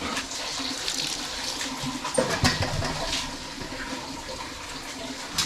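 Water running steadily, with a few light knocks over the flow.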